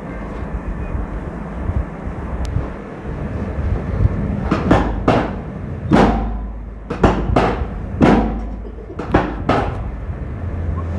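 A run of about ten sharp, percussive impacts in uneven groups, starting about four seconds in, over a steady low hum.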